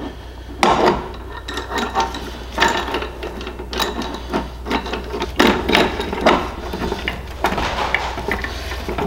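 Steel roller chain and gear shaft clinking and rattling against the aluminium case of a Polaris transmission as the chain drive is fitted by hand. The sound is a run of irregular clicks and knocks with light scraping between them.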